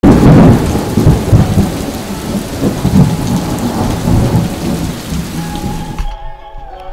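Rain and rolling thunder, loudest at the start and slowly fading, cut off abruptly about six seconds in.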